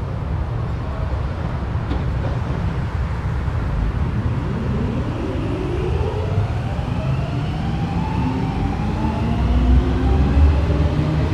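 Helsinki metro train pulling away from the platform: a steady low rumble with a whine of several tones that rises in pitch from about four seconds in as the train accelerates.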